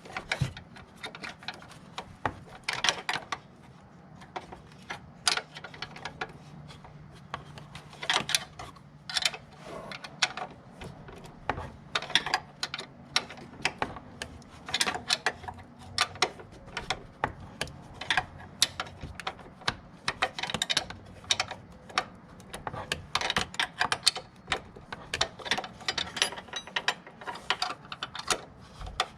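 Hand tools working on a car: irregular metallic clicks and clatter, often in quick runs of several clicks, over a faint low hum.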